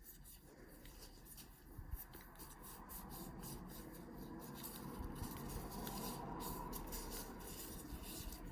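Alcohol cleaning wipe rubbing around the plastic of an AirPods Pro charging case: faint scuffing with many small ticks.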